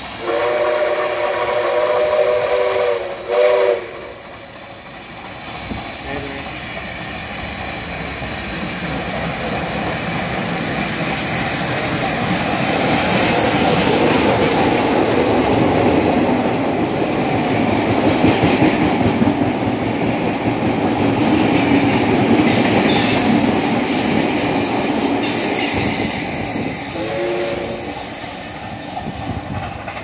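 59 class steam locomotive 5917 sounds its chime whistle, a long blast then a short one. Then the locomotive and its train rumble and clatter past, loudest in the middle and fading near the end, with one more short whistle blast shortly before it dies away.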